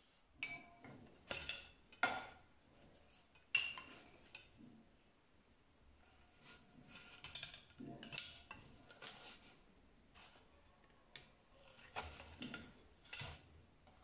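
Wooden sticks and the wooden weaving sword of a hand loom knocking and clicking against one another as the weaver handles them in the warp. The sharp knocks come irregularly, in small clusters, with quiet gaps between.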